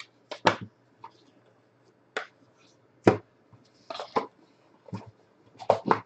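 Irregular sharp clicks and taps of trading cards and card packaging being handled and set down on a tabletop, about eight or nine short sounds spaced unevenly.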